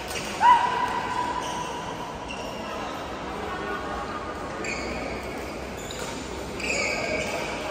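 Busy badminton hall: sports shoes squeaking on the court mats, with the loudest squeal about half a second in and another near the end, over players' voices echoing in the big hall.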